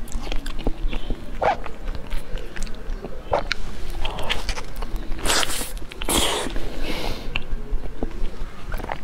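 Close-miked mouth sounds of a person eating soft durian flesh: wet smacking and chewing throughout, with two louder, longer wet noises about five and six seconds in.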